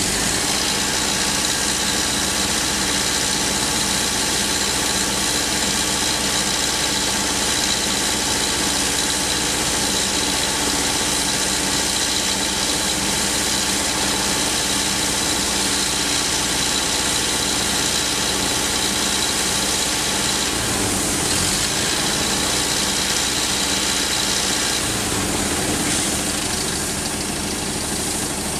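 Large demolition excavator's diesel engine running steadily at idle, with a steady high whine over the engine note.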